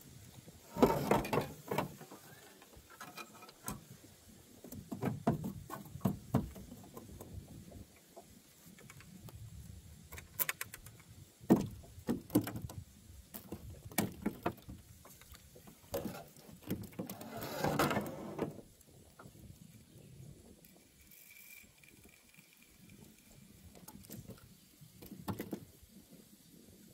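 Irregular rustles, knocks and clicks as an angler handles his rod and reel in a small boat, the loudest bunched about a second in, around twelve seconds and around eighteen seconds.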